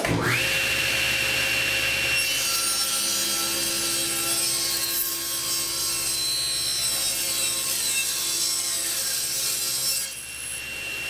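Table saw motor starting up with a quickly rising whine, then a walnut board being ripped lengthwise from about two seconds in. The blade noise thickens while it cuts and drops back to the saw's free-running whine near the end, as the cut finishes.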